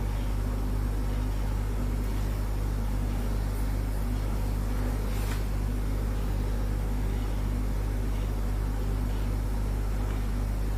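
Steady low hum with an even background hiss, and a faint tick about five seconds in.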